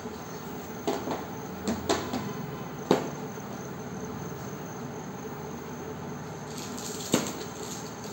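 Paper being handled on a tiled floor: a few sharp taps and rustles in the first three seconds and one more near the end, over a steady faint hiss.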